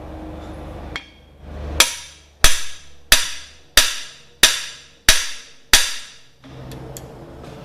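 Hammer strikes on a cam bearing installer tool, driving a cam bearing into the cam bore of a 396 big-block Chevy engine block. There is a light tap about a second in, then seven sharp blows about two-thirds of a second apart, which stop about six seconds in as the bearing goes home.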